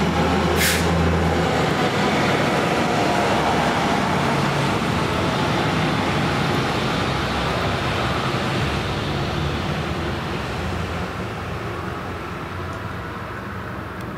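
Ram 5500 brush fire engine driving by in traffic, a steady engine and road rumble that fades away over the last several seconds. A short sharp hiss comes about half a second in.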